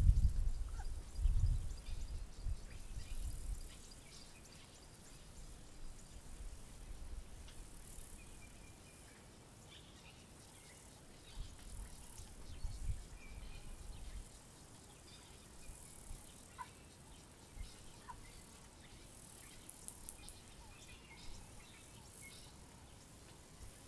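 African savanna ambience: a faint steady high insect buzz with scattered short bird calls. A low rumble is loudest in the first few seconds, then fades.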